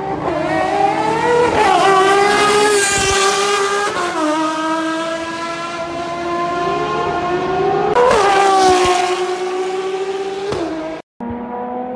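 Ferrari FXX-K Evo's V12 racing engine at speed on track, its note climbing and dropping several times as it works up and down the gears. It is loudest as the car passes about eight seconds in. About eleven seconds in the sound cuts off briefly, and another stretch of the engine with a slowly rising note follows.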